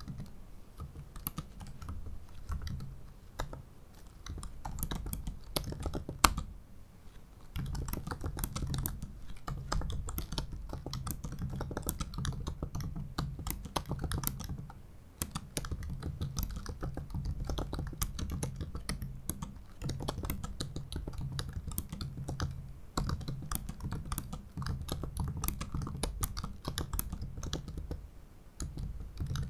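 Fast, continuous typing on a 15-inch 2017 MacBook Pro's butterfly keyboard: shallow keys clicking in quick runs with a few short pauses, and one sharper key strike about six seconds in.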